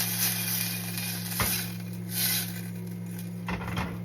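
Drained sweet peas sizzling in hot oil with onion and garlic in a pan, stirred with a utensil that clicks against the pan once about a second and a half in. The sizzle dies down over the last couple of seconds.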